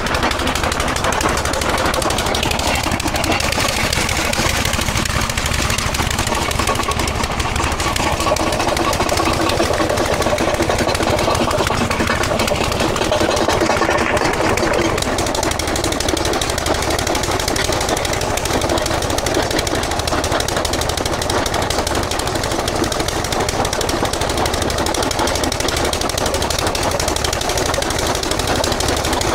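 Heavy stone-working machinery running with a rapid, continuous hammering clatter over a diesel engine.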